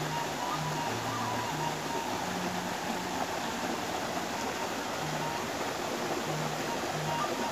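Background music with a slow, low melody of held notes, over the steady rush of a small river cascade.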